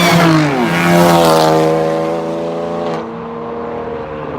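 Car engines at full throttle in a street race. One engine's pitch falls sharply in the first second as a car goes past, and another climbs steadily as it accelerates hard, then drops back to a steadier, quieter note at about three seconds.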